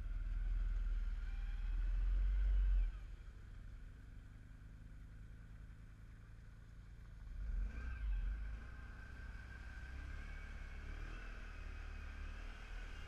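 Off-road vehicle engine running as it drives along a muddy trail, with a low rumble that is loudest for the first three seconds and swells again briefly about eight seconds in.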